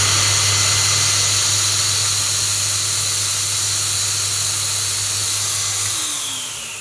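Electric fogger machine's motor running with a steady hum and hiss, then switched off about six seconds in and winding down with a falling whine.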